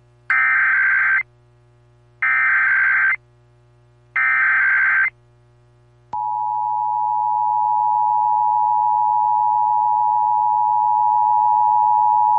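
Emergency Alert System test on a radio broadcast: three short, harsh, buzzing data-header bursts about two seconds apart, then about six seconds in the steady EAS attention signal tone starts and holds.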